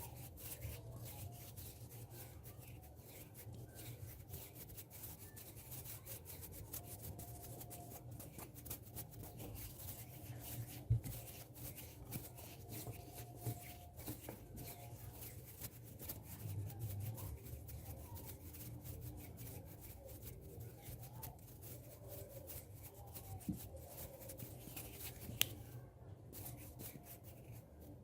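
Hands rubbing and moving close to a microphone: soft, continuous rustling and friction with scattered light clicks, and a couple of sharper taps.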